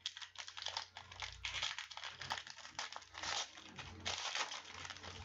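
Foil wrapper of a football trading card pack crinkling and rustling as it is handled and torn open by hand.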